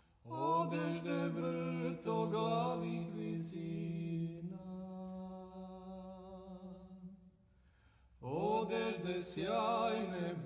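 Unaccompanied vocal chant: a slow, held low note under a wavering sung melody. It breaks off for about a second some seven seconds in, then resumes.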